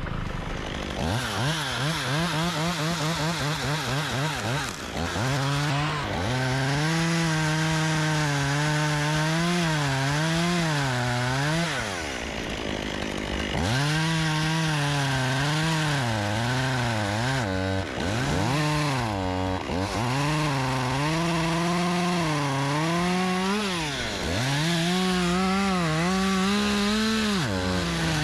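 Top-handle chainsaw cutting through a thick tree limb. Its pitch rises and falls as the chain bites and eases off, and several times it drops away nearly to a stop before speeding back up.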